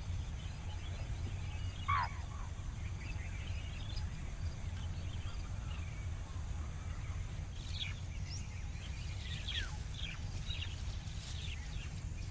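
Wild grassland ambience: a steady low rumble with scattered short bird calls, one descending call about two seconds in and several quick high chirps in the second half.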